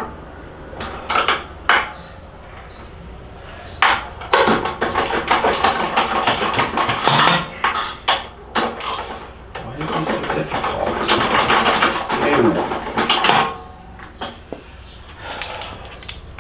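Metal hand tools and bolt hardware clinking and clattering as a motorcycle crash bar is bolted on. A few sharp knocks come first, then several seconds of dense rattling and scraping of metal on metal, then a few scattered clicks.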